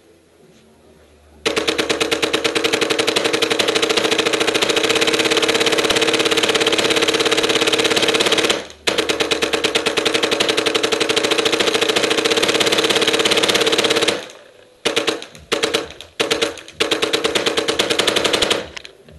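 Tippmann Phenom paintball marker with an X-Board firing full auto. A long unbroken string of rapid shots starts about a second and a half in and stops briefly near the middle, then resumes. Several shorter bursts follow near the end.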